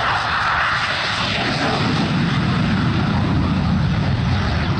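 Fighter jet engine roar, sliding from a higher rush down to a low rumble as if the jet is passing by.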